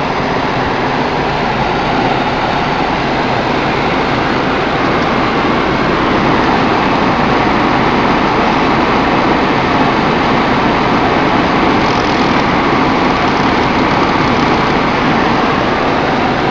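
Ford Focus cabin blower fan running on full, a steady rush of air through the vents heard inside the car; the newly fitted blower motor is running at top speed. It gets a little louder about six seconds in.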